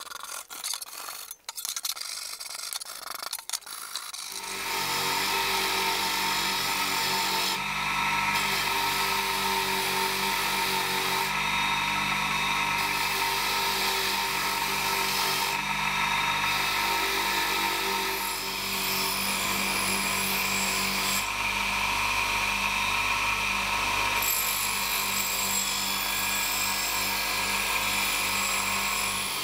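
A brush scratching briefly on an axe head in a steel tray. Then, from about four seconds in, an electric bench grinder runs steadily with a hum while its spinning wheel rubs rust off a steel axe head, the contact noise easing off for a moment now and then.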